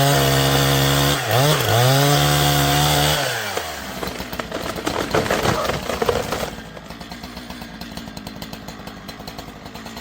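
Chainsaw running at full throttle through a cut, dipping briefly about a second in, then let off about three seconds in and dropping away. Irregular crackling follows, then a quieter, steady low running.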